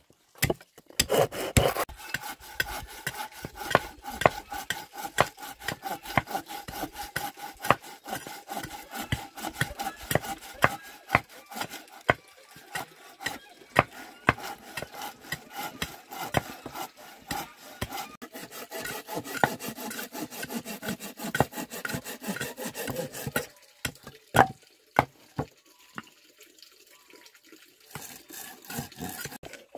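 A hand pruning saw rasping back and forth through a log in quick, even strokes, with occasional sharp knocks of a machete chopping wood. The sawing drops away for a few seconds near the end, leaving a couple of single knocks.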